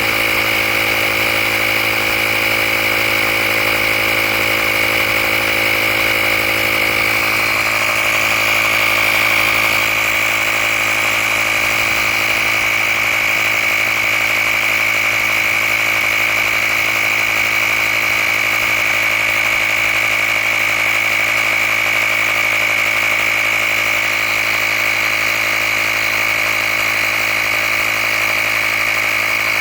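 Handheld tire air compressor running steadily as it inflates a tire toward a preset 35 PSI, with a steady high-pitched whine over its motor hum.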